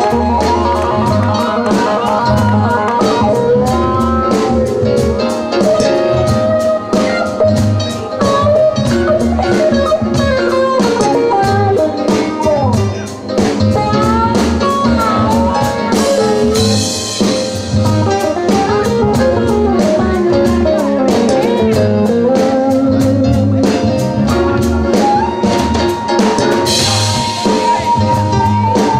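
Live jazz band playing an instrumental passage, with guitar and drum kit, and a cymbal crash about halfway through and another near the end.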